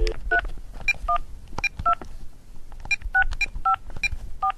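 A touch-tone telephone keypad being dialed: a string of short two-note key beeps at uneven intervals, with key clicks between them.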